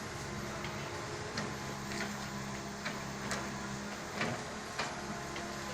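Komatsu excavator's diesel engine running steadily, with scattered sharp clicks and knocks over it, about half a dozen; the engine note dips briefly about four seconds in.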